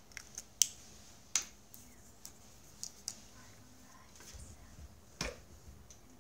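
A handful of sharp clicks and taps, the two loudest in the first second and a half, as a pen is handled and put down on a desk. Then a low rumble and a single thump, handling noise as the camera is picked up and moved.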